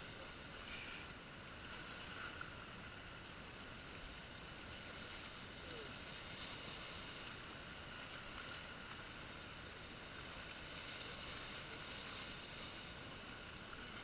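Sea waves washing and churning among the rocks of a breakwater: a steady hiss of surf with no single standout crash.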